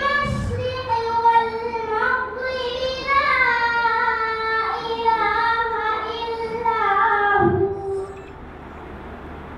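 A girl reciting the Quran in melodic chant, drawing one long phrase out on a slowly winding line. The phrase ends about eight seconds in.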